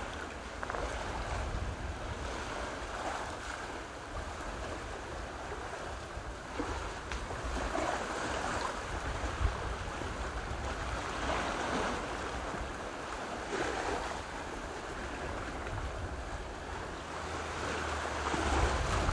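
Sea surf washing onto a beach, swelling and easing every few seconds, with wind rumbling on the microphone.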